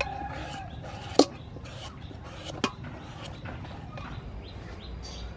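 Knife shaving thin slices off a peeled green papaya into a stainless steel bowl: a regular run of short cutting strokes, about three a second. A few sharp clicks stand out, the loudest a little over a second in.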